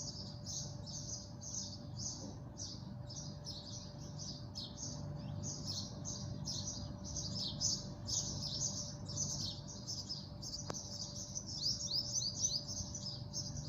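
Small birds chirping rapidly and without pause, many quick high chirps a second, over a low steady hum.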